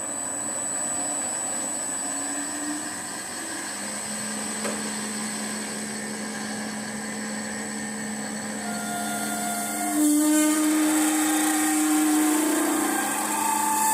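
Metalworking lathe running while a twist drill is fed from the tailstock into the end of a spinning brass bar, drilling the tapping hole for an M12 thread. About ten seconds in the drill bites deeper and the cut gets louder, with a steady ringing note over the machine's hum.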